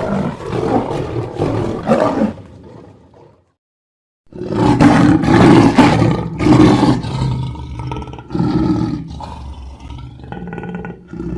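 Lion roar sound effects: one roar tails off about two seconds in, and after a short silence a second roar starts, coming in several loud surges before dying down to a quieter, rumbling tail.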